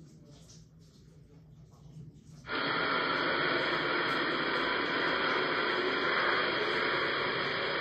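A loud burst of electronic static hiss, starting suddenly about two and a half seconds in and cutting off abruptly at the end, after a faint low hum.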